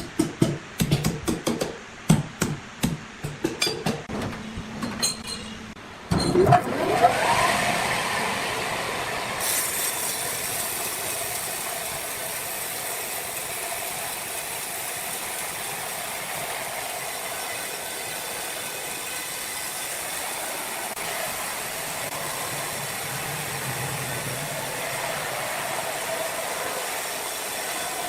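Sawmill machinery: a quick run of sharp knocks and clatters, then about six seconds in a machine starts with a rising pitch and settles into a steady running whine with a hiss.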